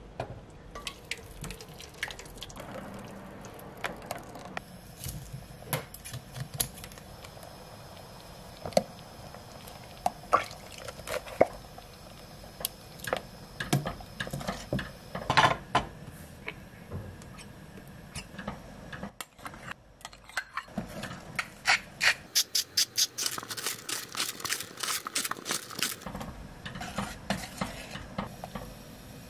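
Thick blended squash soup poured from a blender jug into a stainless steel pot, then stirred with a spatula that taps and scrapes against the pot's sides. About three quarters of the way through, a quick run of taps comes at about four a second.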